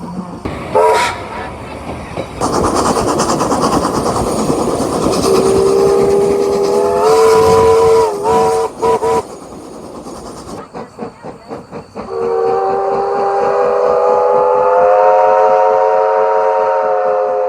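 NZGR chime steam whistle on locomotive A428 sounding a multi-note chord over a hiss of steam: a short toot about a second in, a long blast from about five seconds that wavers and breaks off near nine seconds, then a second long blast from about twelve seconds on. A rapid rhythmic beat runs underneath in the second half.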